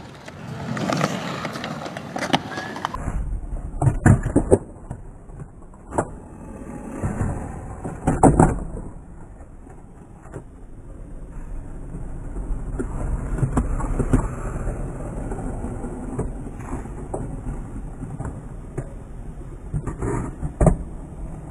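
Skateboard wheels rolling over concrete in a steady low rumble, broken by several sharp clacks of the board hitting the ground a few seconds apart.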